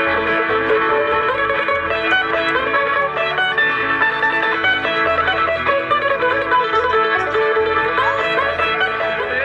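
Bluegrass band playing: banjo and mandolin picking over acoustic guitar and upright bass.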